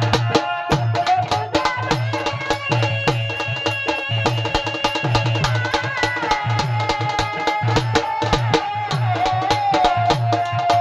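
Instrumental interlude of a song: a steady drum rhythm of sharp strokes and low thuds under a held melodic lead line that slides between notes.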